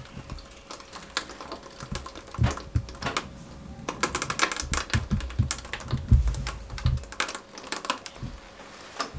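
Irregular sharp clicks and creaks, with a few dull knocks, from a stainless steel seviyan (falooda noodle) press resting on wooden planks as it is slowly weighted down to squeeze hot starch dough through into iced water. The clicks come thickest about halfway through.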